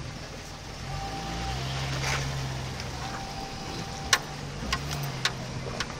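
Jeep Cherokee XJ crawling along a rocky dirt trail: the engine runs low and steady, swelling slightly about a second in, under the crunch of the tyres. Several sharp knocks in the last two seconds.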